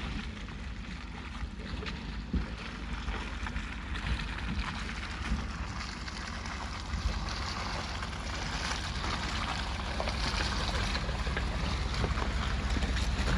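A truck driving over a rough dirt forest road: steady low rumble and road noise with a few scattered knocks from the rough ground, growing gradually louder.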